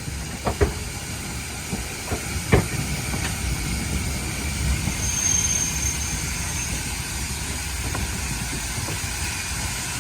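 Standard gauge steam locomotive hissing steam over a steady low rumble, with a few sharp metallic clanks, the loudest about two and a half seconds in.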